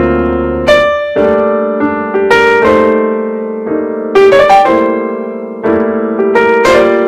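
Background music: piano chords struck one after another, each note ringing and fading.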